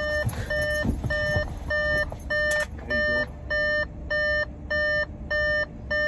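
Car's door-open warning chime beeping at an even pace, about one and a half beeps a second, over a low steady rumble.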